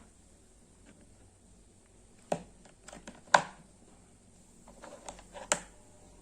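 Handling noise: a few scattered sharp clicks and knocks. The loudest comes a little over three seconds in, and a short cluster follows near the five-second mark.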